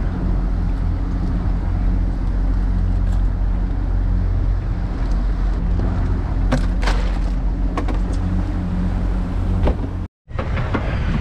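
Boat engine running steadily, a constant low hum. A few sharp knocks come around the middle as a fish is laid into an ice-filled cooler. The sound cuts out for a moment near the end.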